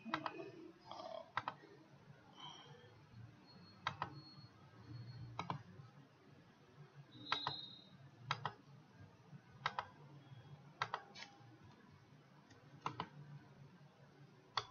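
Computer mouse clicks: about ten short, sharp clicks spaced a second or so apart, some in quick pairs, over a faint low room hum.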